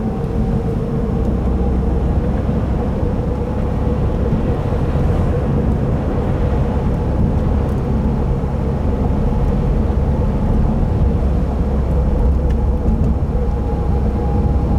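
Cabin noise of a 2015 Subaru WRX driving on a slick, snowy road: a steady low rumble of engine and tyres with a faint steady hum over it.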